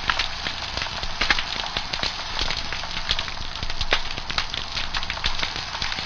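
Pistol shrimp snapping: a dense, irregular crackle of many sharp clicks over a steady hiss.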